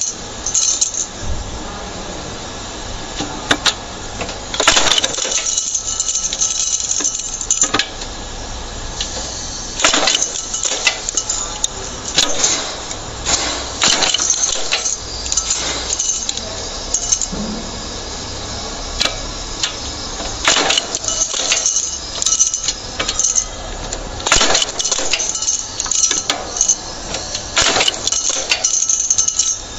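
Automatic feeding rivet machine setting rivets through a brake lining into a brake shoe: a string of sharp metallic clinks and clacks at irregular intervals, sometimes several close together, over the steady low hum of the machine's motor.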